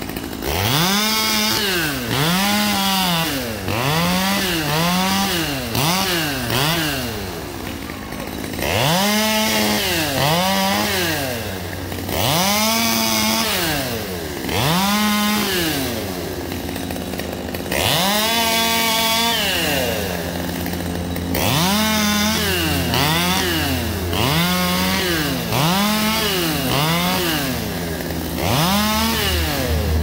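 Gas chainsaw revving up and dropping back over and over, about once a second, as it cuts up limbs. Around the middle it settles into a few seconds of steadier running before the revving resumes.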